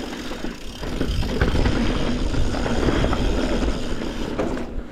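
Wind rushing over the camera microphone, with the rumble and rattle of a Yeti SB140 mountain bike rolling fast down a dirt and rock trail; it eases near the end.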